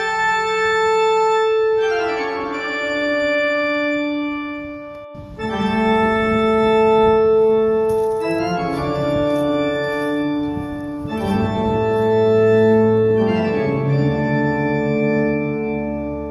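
Organ music: slow, sustained chords that change every two to three seconds, with a brief break about five seconds in.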